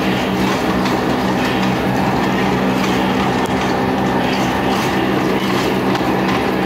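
Life Fitness stair-climber stepper worked hard at level 15, running with a steady hum and the clatter of its pedals.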